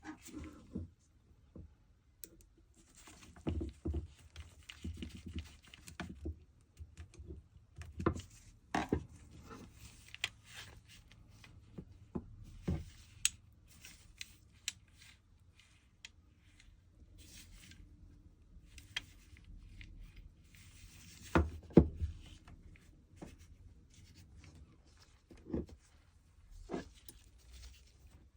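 Irregular clicks, taps and scrapes of small parts and tools being handled on a workbench, with two louder knocks a little past the middle.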